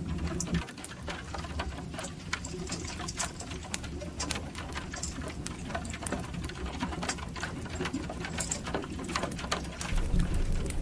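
Rain pattering on the metal roof and body of an armoured vehicle, heard from inside as a dense run of irregular ticks over a steady low rumble that gets louder near the end.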